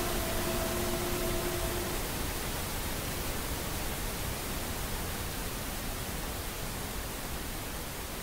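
Steady, even sound-masking noise like pink noise, slowly getting quieter. A sustained chord of several held tones dies away about two seconds in.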